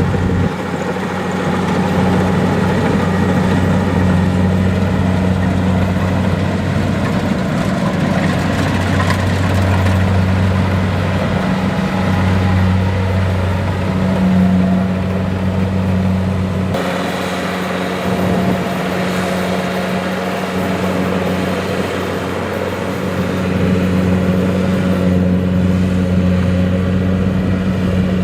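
Kubota DC-70 Plus rice combine harvester's diesel engine running steadily with a low drone, its tone shifting abruptly about two-thirds of the way through.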